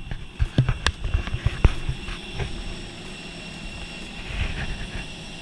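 Steady high whine and rumble of a parked jet airliner on the apron, with a run of knocks and bumps from the camera being handled while walking in the first two seconds.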